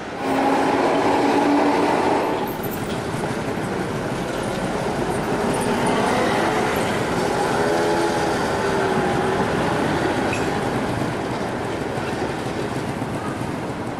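Street trams running on their rails, with a steady tone over the noise for the first two seconds. Midway through, wavering high-pitched wheel squeal as a tram rounds a tight curve in the track.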